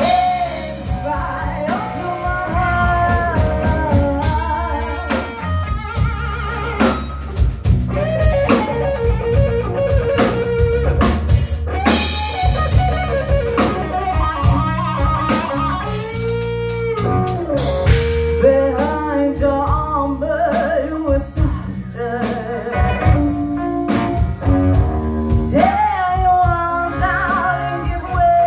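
A live rock band playing: a woman singing lead over amplified electric guitar, bass guitar and drum kit.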